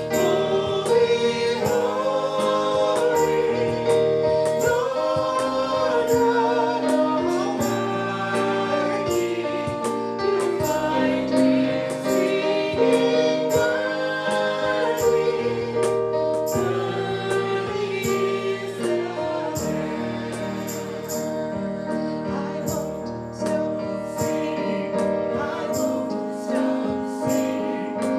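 Congregational worship singing: a group of voices sings a hymn over instrumental accompaniment with a steady beat.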